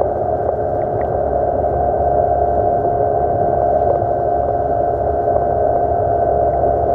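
Yamaha 40 hp two-stroke outboard motor running steadily under way at constant speed, an even drone with no change in pitch.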